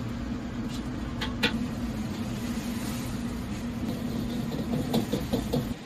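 Commercial gas wok burner running steadily under a carbon-steel wok, with a ladle clinking against the wok a few times about a second in and again in a quick run near the end. The burner noise drops away sharply just before the end.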